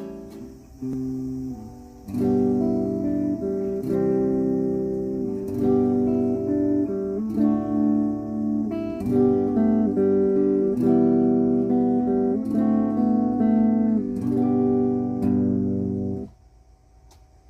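Aria Pro II TA-TR1 semi-hollow guitar played in strummed, ringing chords, a new chord every second or two. The playing stops about a second before the end.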